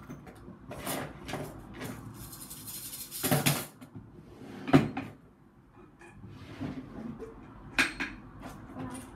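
Craft items being handled and put away in a box: scattered clicks and knocks, a rustle about three seconds in, and a sharp knock near the middle and another near the end.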